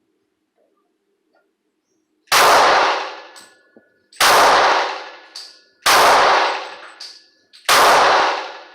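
Four shots from a Glock pistol in .40 S&W, fired at a steady pace about two seconds apart, each trailing off over about a second. A lighter, short metallic click follows each shot.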